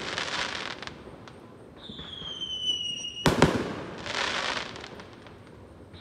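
Aerial fireworks: crackling from a fading burst, then a whistle falling slightly in pitch that cuts off at a sharp bang about three seconds in, followed by a second spell of crackling.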